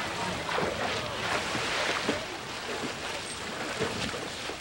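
Water splashing and sloshing in a dolphin pool, with irregular small splashes over a steady rushing background.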